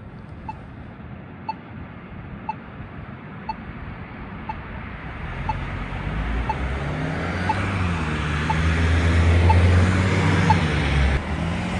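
Polara iNS2 accessible pedestrian signal push button sounding its locator tone, a short tick about once a second, which marks the button during the wait (don't walk) interval. A car's engine and tyre noise builds up under it from about halfway in and is loudest near the end.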